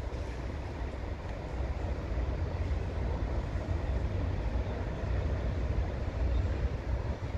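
Outdoor city traffic ambience: a steady wash of passing vehicles, with wind buffeting the microphone as a fluctuating low rumble.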